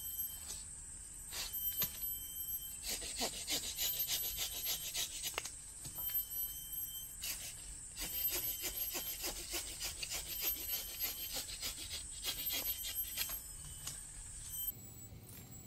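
Wood being worked with a hand tool, cut or scraped in runs of quick rasping strokes with pauses between them, over a steady high-pitched hum.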